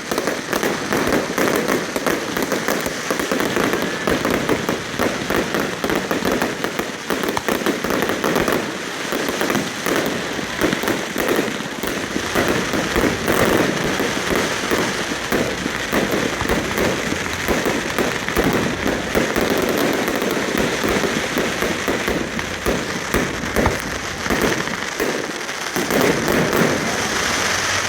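Fireworks show in progress: a dense, unbroken run of rapid cracks and crackling shells.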